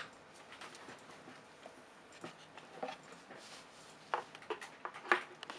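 Scattered light clicks and knocks of plastic parts being handled as a hose and dust bag are fitted to a portable electric blower, a few separate taps with quiet between; the blower itself is not running.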